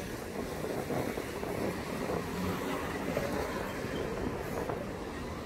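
Steady city street ambience, mainly a haze of traffic noise, with no single event standing out.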